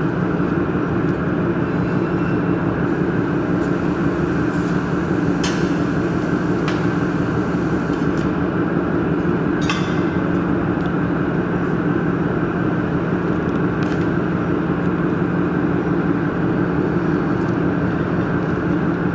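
Steady machine hum with a constant low drone, with a few light clicks about a third and halfway through.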